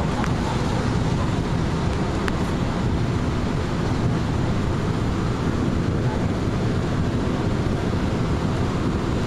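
Steady low rumble of a train running at speed, heard from inside the passenger car.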